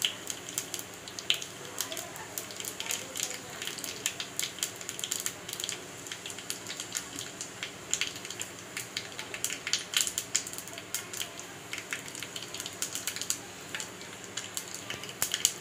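Cumin and carom (ajwain) seeds crackling and sizzling in hot oil in a small pan, a steady stream of small pops over a hiss. The seeds are being roasted for a tempering (phodni).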